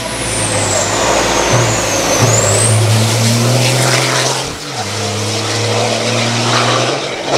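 MAN race truck's diesel engine running under way at held revs, its pitch stepping between steady levels, with a brief drop and recovery about four and a half seconds in. A faint high whine glides down and back up during the first few seconds.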